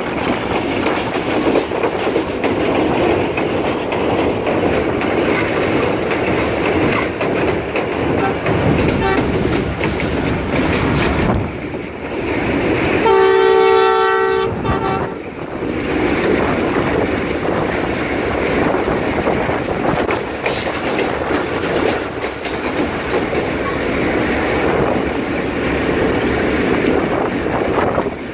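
Diesel locomotive running along the track, heard from on board as a steady rush of wind and rail noise. Its horn sounds once, a held multi-tone blast of about two seconds, around the middle.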